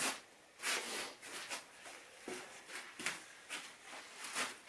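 A person's footsteps and clothing rustle: a string of short, irregular scuffs.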